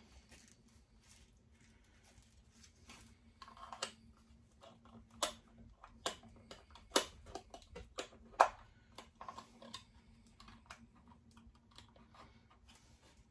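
Irregular clicks and taps of a small plastic gadget and its parts being handled, probably the clock camera's back cover being fitted, with the sharpest clicks about five, seven and eight and a half seconds in. A faint steady hum runs underneath.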